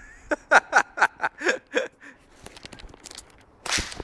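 A person laughing in a quick run of short bursts, about four a second. Near the end comes a single loud, sharp burst of noise.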